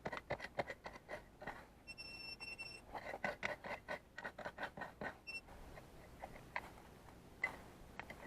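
Hand digging tool scraping and jabbing into soil in quick repeated strokes, about three to four a second for the first five seconds, then only a few scattered scrapes. A short high electronic beep sounds about two seconds in.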